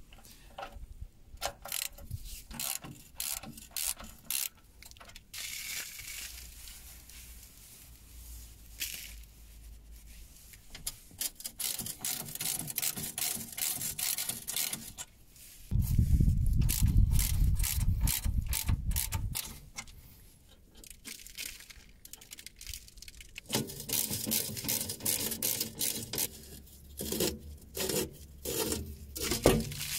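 Hand ratchet socket wrench clicking in quick runs as the bolts of a mini excavator's undercarriage cover are backed out, with pauses between runs. Midway comes a few seconds of louder low rumbling noise.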